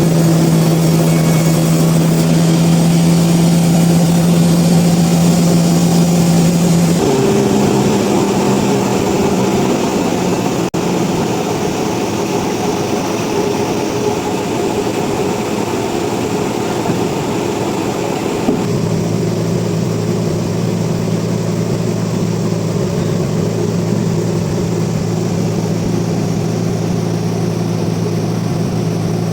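Sawmill machinery running with a steady droning hum. Its pitch changes abruptly about seven seconds in and again about eighteen seconds in.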